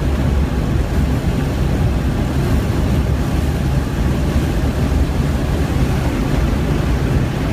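Inside the cabin of a 1998 BMW E36 M3 sedan at about 95–105 mph: its straight-six engine running under acceleration, mixed with heavy road and wind noise, loud and steady throughout.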